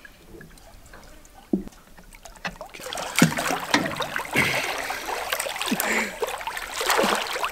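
Lake water splashing and sloshing around two people treading water, close to the microphone. It is quieter for the first few seconds, then grows into busy splashing about three seconds in.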